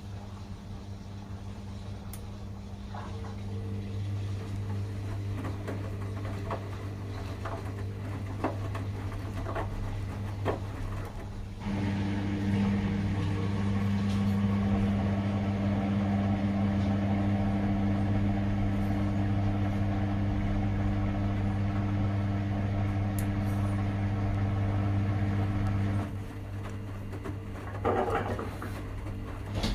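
Washing machine running a 40 °C delicates cycle: a steady motor hum that grows louder about twelve seconds in and drops back near the end, with a few faint clicks early on.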